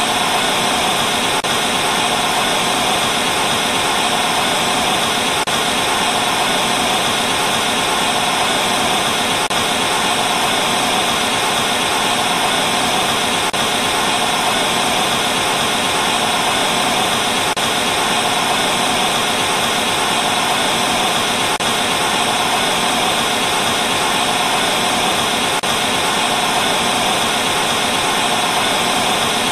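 Steady hiss of TV static from an untuned television, unbroken and even.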